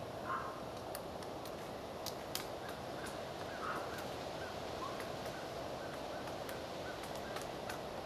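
Pileated woodpecker pecking at the bark of a pine trunk: scattered, irregular sharp taps over a steady background hiss, with a few faint short calls.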